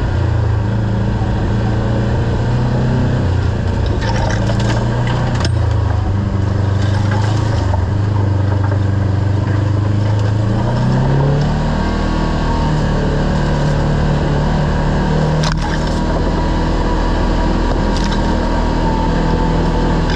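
Kawasaki KRX side-by-side's parallel-twin engine running steadily while driving a trail, rising in pitch about halfway through as it speeds up. A couple of sharp knocks are heard, one several seconds in and another later.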